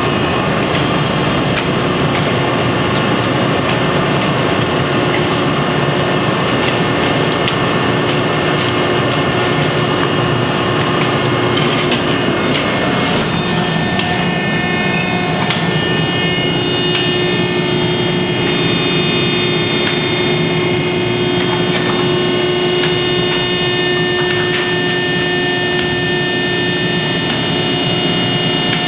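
Harris HRB-1C recycling baler running: loud, steady machinery noise with several steady whining tones. The sound shifts about halfway through, and a few clicks and knocks come through.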